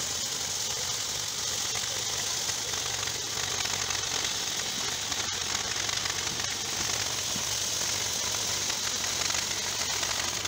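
Portable band sawmill cutting lengthwise through a squared log: a steady, hissing, crackling rasp of the band blade in the wood over a low engine hum.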